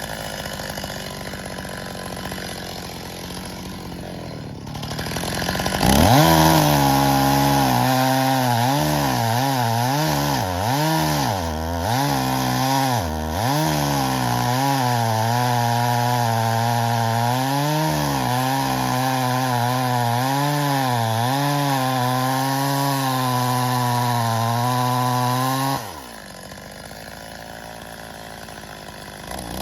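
Stihl MS 270 two-stroke chainsaw idling, then revving up to full throttle about six seconds in and cutting through birch logs. Its pitch dips and recovers several times under load, then holds steady. It drops back to idle near the end, with a short blip of throttle at the close.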